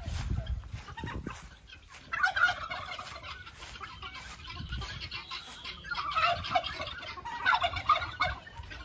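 Domestic turkeys gobbling in several rapid, rattling bursts, about two seconds in and again twice near the end.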